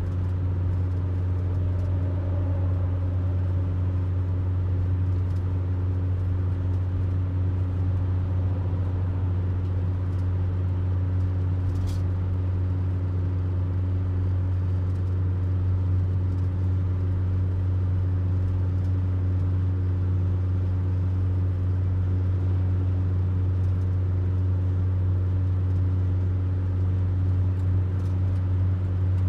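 Steady, deep hum of a van's engine and tyres heard from inside the cab while driving through a road tunnel.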